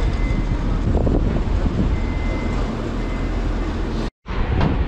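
Wind buffeting the microphone: a steady low rumble with hiss, broken by a brief cut to silence near the end.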